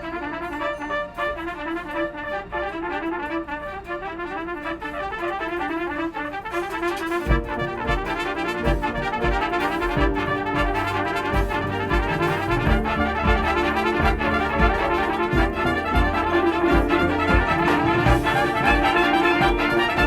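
Drum and bugle corps brass line playing, slowly building in volume; about seven seconds in, drums join with steady low hits under the horns.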